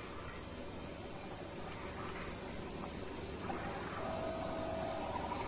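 Steady chorus of insects chirring, with a short faint tone about four seconds in.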